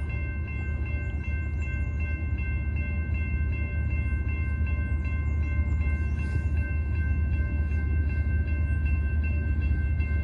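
Railroad grade-crossing bell ringing steadily at about three strokes a second, over the low rumble of an approaching freight train that slowly grows louder.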